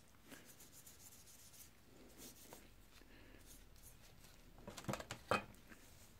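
Faint rubbing and scraping as paint stripper is worked over a knife's wooden handle in a metal pan, with a few sharp knocks against the pan about five seconds in.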